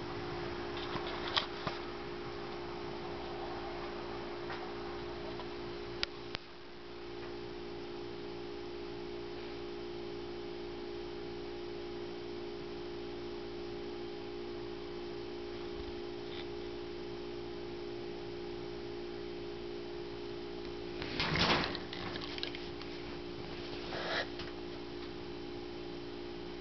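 A Pitweiler puppy snoring in his sleep, with two louder snores near the end a few seconds apart, over a steady low electrical hum.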